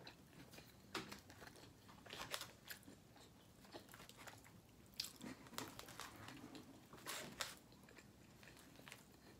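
A person chewing food close to the microphone, faint, with a handful of short sharp clicks and crunches through the chewing.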